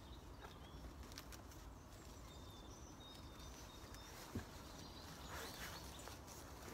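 Quiet woodland ambience: faint rustling and small clicks, with one soft knock about four seconds in and a short rustle just after five seconds.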